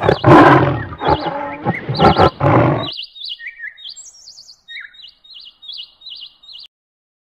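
A tiger roaring loudly a few times in the first three seconds, over songbirds chirping. After the roars stop, only the birds go on, short repeated trills, until they cut off near the end.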